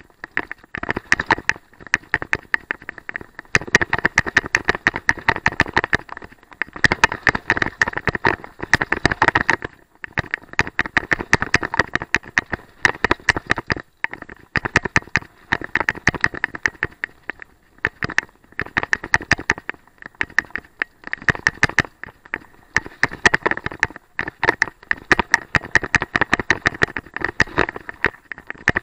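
Mountain bike descending a dirt singletrack: rapid, irregular clicking and rattling from the bike over the rough trail, in runs broken by short pauses every few seconds.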